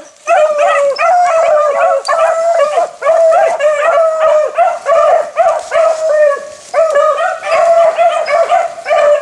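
Beagles baying on a rabbit's trail: a steady, overlapping run of short bawling calls, several a second, with a brief lull about two-thirds of the way through.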